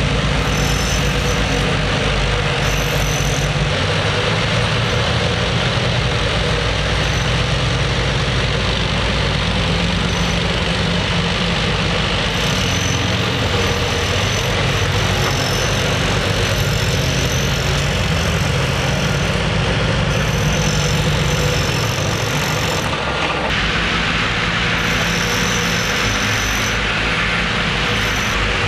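Heavy diesel machinery running steadily on a railway track-renewal site: bulldozer, excavators and a ballast train's engines, a constant low drone. A high-pitched whine comes and goes several times over it.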